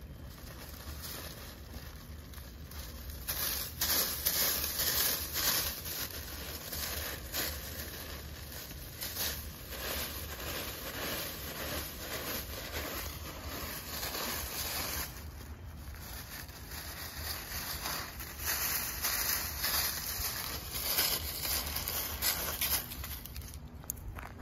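Dry fallen leaves crackling and rustling as a calico cat paws and shifts about in a deep pile of them. The sound comes in bouts of a few seconds with quieter pauses between.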